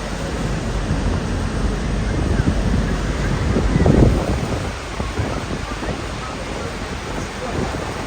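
Steady rushing roar of heavy water, with wind buffeting the microphone; it swells briefly about halfway through.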